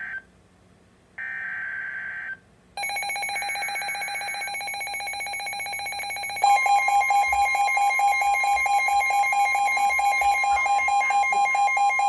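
NOAA Weather Radio alert: a second short burst of buzzy SAME data tones, then, about three seconds in, a weather radio's fast pulsed electronic alarm beeping starts. A steady, loud warning alert tone joins it about six and a half seconds in. Together they signal a severe thunderstorm warning.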